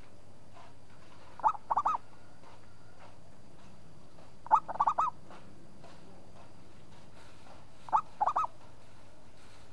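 Zebra dove cooing three times, about three seconds apart: each phrase a single short note followed by a quick run of three or four rolling notes.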